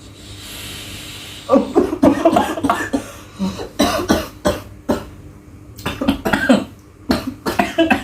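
A steady breathy hiss for about a second and a half, then repeated harsh coughing fits from a vaper whose throat has been hit by a very cold, heavily cooled e-liquid.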